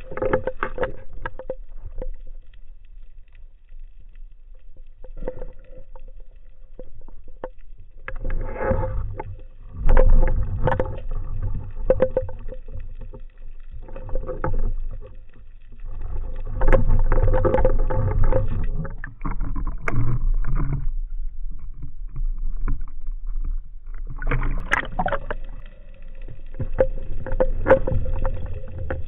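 Water noise around a spearfisher's camera: swells of sloshing and bubbling that come and go every few seconds, with scattered clicks over a faint steady hum.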